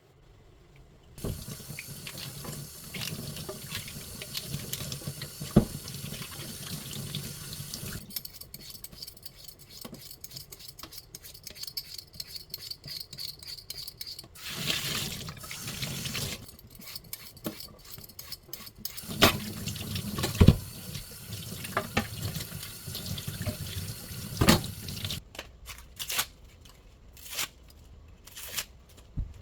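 Water running from a kitchen tap into a sink in spells, as when vegetables are rinsed, with scattered knocks and clicks that come more often in the second half.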